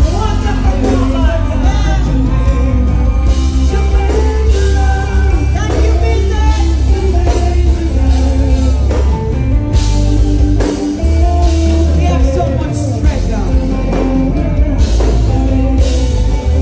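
Band music with a singer over a heavy bass line.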